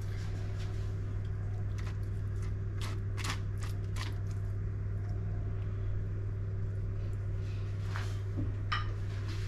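Light clicks and taps of a basting brush against a ceramic bowl and the pig's skin as marinade is brushed over a whole suckling pig, heard over a steady low hum.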